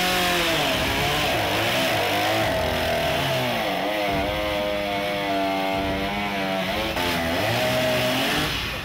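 Two-stroke chainsaw engine running hard as the saw is driven into a prop body, its pitch dipping and climbing back up about three times.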